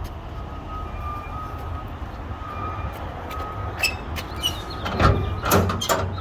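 A steady low rumble of a vehicle engine running, under a sheet-metal enclosure gate that rattles and clanks several times as it is handled, loudest about five seconds in.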